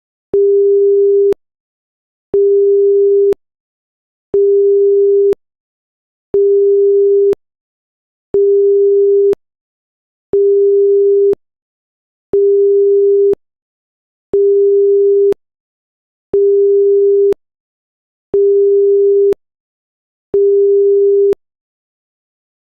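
Seismic monitor's electronic alert beep: eleven identical one-second beeps at one steady pitch, repeating every two seconds, like a busy signal.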